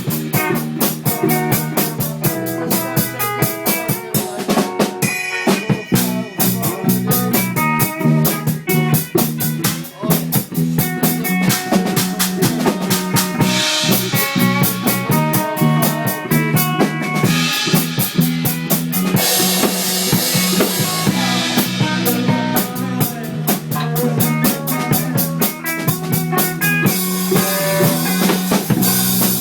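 A band playing loud music: a drum kit with rapid snare and bass drum hits over moving pitched instrument lines.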